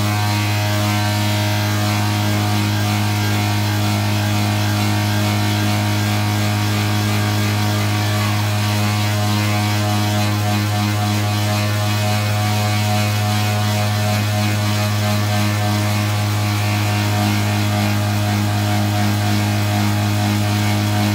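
Cotton candy machine's spinning head motor running at full speed, fed straight from a 10-amp battery charger with no dimmer or speed controller: a loud, steady hum.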